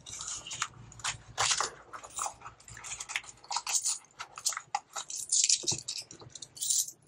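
Paper bills and plastic cash envelopes rustling and crinkling as they are handled and flipped through in a leather wallet, in a quick irregular run of short rustles.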